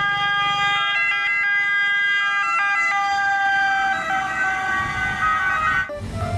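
Electronic ambulance siren sound made of steady tones that step between pitches. It fades after about four seconds and stops shortly before the end.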